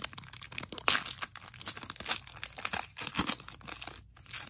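Plastic wrapper of a Panini Chronicles football card pack being torn open and crinkled by hand: a dense run of crackles and rips, loudest about a second and again about two seconds in, thinning out near the end.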